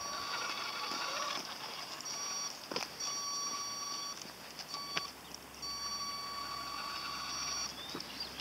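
Battery-powered RC monster truck's electric motor whining at a steady high pitch, cutting in and out in short spurts as the throttle is pressed and released. Two sharp ticks come in the middle.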